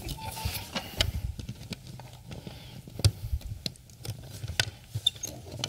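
Raffle drum being spun by hand, the tickets tumbling inside: a string of irregular clicks and light rattles.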